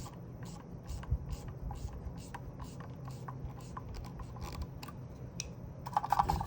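Light, irregular clicks and taps of plastic magazine parts being handled and fitted, a few a second, with a louder clatter near the end, over a steady low hum.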